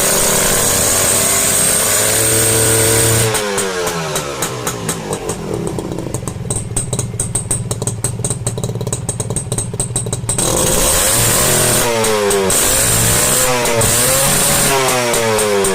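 Honda H100S two-stroke single-cylinder motorcycle engine running, revved up and down with repeated throttle blips. Between the blips it drops back to a lower, even idle for several seconds before being revved again near the end.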